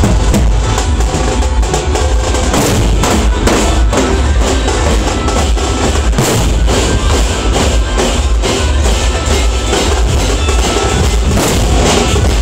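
Group of large barrel drums (dhols) beaten with sticks, a loud, dense drumming rhythm with heavy low thumps.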